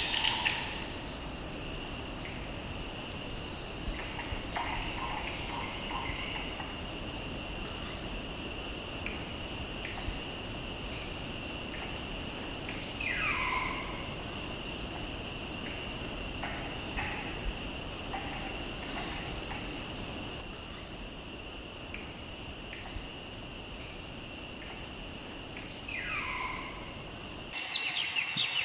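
Forest ambience: a steady high-pitched insect drone pulsing about once a second over a second, lower steady insect tone, with short bird chirps and, twice, a bird call sliding down in pitch. The high drone stops abruptly near the end.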